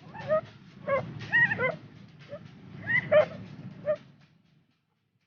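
A dog whining and yipping in short, high calls that bend in pitch, about two a second, over a low steady background noise. The sound cuts out about four seconds in.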